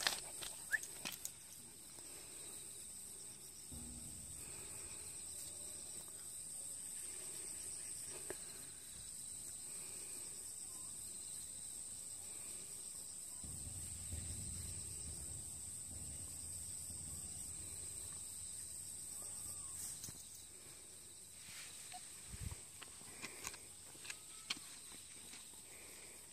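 Insects chirring in a steady, high, even trill, which breaks off briefly about twenty seconds in, with a few faint clicks near the end.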